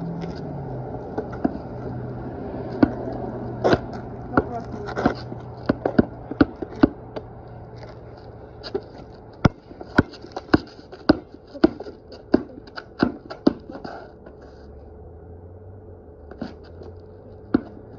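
Basketball bouncing on a concrete driveway: it is dribbled in runs of sharp thumps, about two a second, with a steady low hum underneath.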